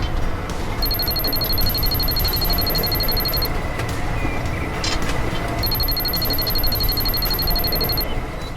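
Rapid electronic alarm beeping in two spells of about two and a half seconds each, over a steady mechanical din.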